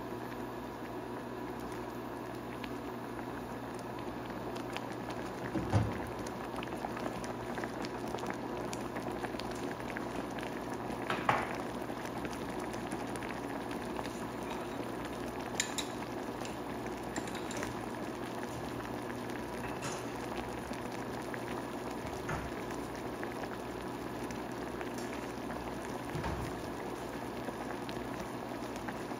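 Peach and date jam boiling vigorously in a pan, a steady bubbling with a few brief louder clicks, the strongest about six and eleven seconds in.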